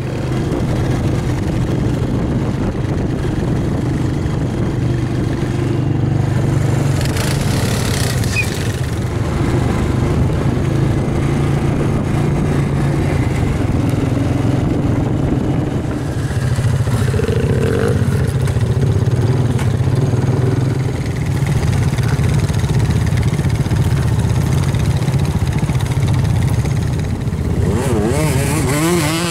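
ATV engine running steadily while riding along a dirt trail, a loud low drone that holds almost level throughout.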